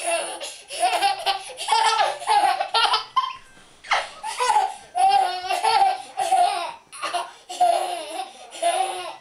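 A toddler laughing in many short, high-pitched bursts, one after another, with a brief pause about three and a half seconds in.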